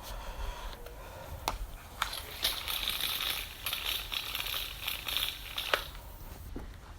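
Scattered plastic clicks and rattling as a Karcher K2 pressure washer's lance is handled and fitted to the trigger gun, with a stretch of rustling handling noise in the middle.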